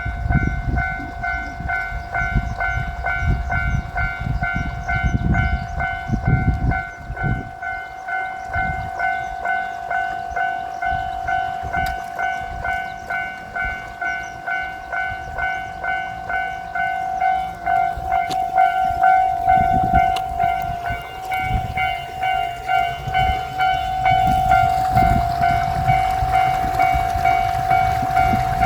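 Japanese level-crossing warning bell ringing in an even, rapid, repeating clang that never stops. Low rumble runs beneath it, and the rail noise of the approaching diesel limited express builds over the last few seconds.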